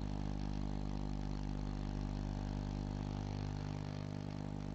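Steady low buzzing hum from a public-address sound system, holding one pitch and level.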